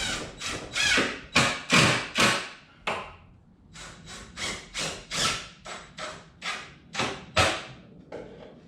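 A run of sharp knocks and thumps on wood, about fourteen in all, a couple a second, with a short pause about three seconds in, made while fitting a wooden tool hanger to the underside of a cabinet.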